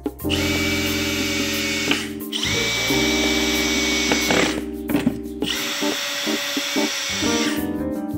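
Makita cordless drill-driver running in three bursts of about two seconds each, driving screws that fasten an amplifier to an MDF board. Background music plays underneath.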